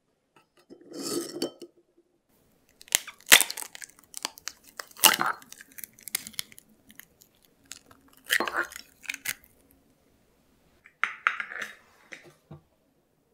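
Close-up handling of raw eggs and a ceramic egg separator: about five separate bursts of sharp taps, clicks and crunches of eggshell, with ceramic clinks, as eggs are cracked and the yolks separated from the whites.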